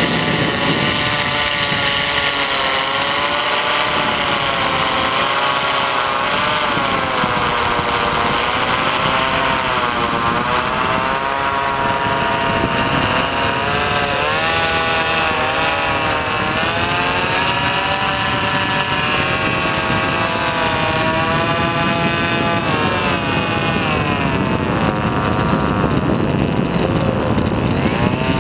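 Whine of a remote-control blimp's ducted propeller motor, heard close up, its pitch rising and falling again and again as the motor speeds up and slows.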